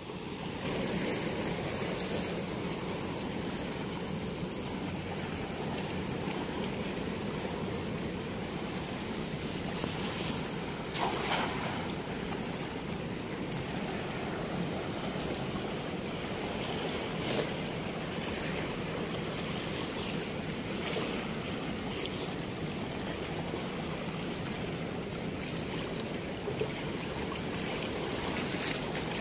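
Fast, churning river water rushing steadily below a weir, with a few short clicks, one about eleven seconds in and another a few seconds later.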